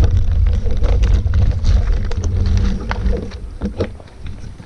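Wind buffeting the microphone, a deep rumble that dies away about three seconds in, with scattered light knocks and clicks over it.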